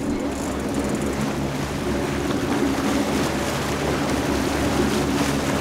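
A boat's engine running steadily, mixed with wind and open-water noise.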